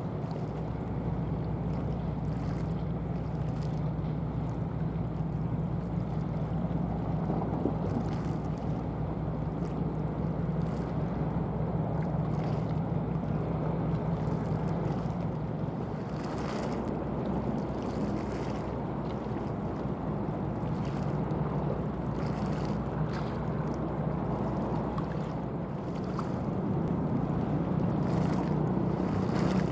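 Steady low drone of a container ship's diesel engine carried across the water, over a rushing haze of wind and water. The engine hum eases a little in the middle and grows stronger again near the end.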